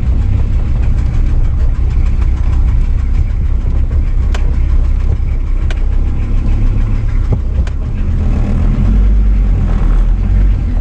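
Car engine and road noise heard from inside the cabin while driving, a steady low rumble with a few sharp clicks around the middle.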